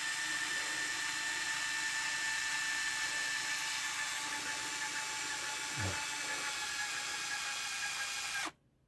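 Canon EOS 1000F N's built-in film-transport motor running with a steady whine as it pre-winds the whole 35 mm roll out of the cassette after loading. It stops abruptly near the end, once the full roll is wound.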